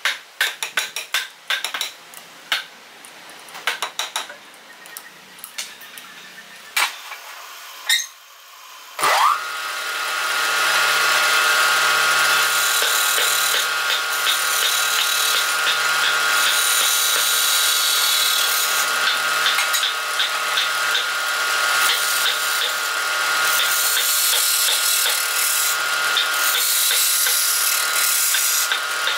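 Metal clicks and knocks of a T-handle chuck key tightening a lathe chuck. About nine seconds in, the lathe motor starts with a rising whine and runs steadily while a hand gouge hollows the inside of the spinning wooden piece, a continuous scraping as shavings are cut.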